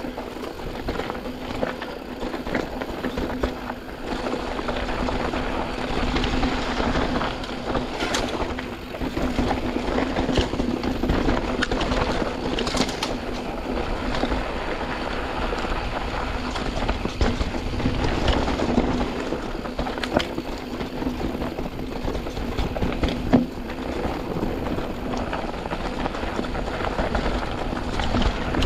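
A 2020 Canyon Spectral AL 6.0 full-suspension mountain bike riding fast down a dirt trail, heard from a chest-mounted camera: continuous tyre noise on the ground with the bike and chain rattling, many sharp clicks and knocks over bumps, and a steady low hum underneath.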